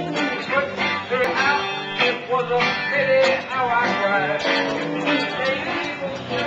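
Music played on strummed guitars, with a singer.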